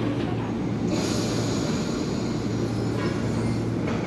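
Electric commuter train running through a station, with a steady low hum and rumble. About a second in, a high hiss or squeal joins it and stops shortly before the end.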